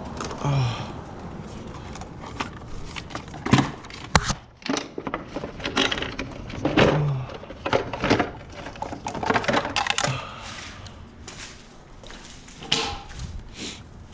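Hard plastic intake parts and airbox of a Mitsubishi Evo knocking, clicking and scraping as they are worked loose and pulled out by hand, in irregular bursts of clunks and rattles.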